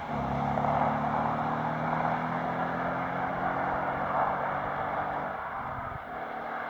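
2016 Ford Mustang 5.0 V8 on its stock EU-spec exhaust, running at an almost steady pitch, then easing off and fading about six seconds in.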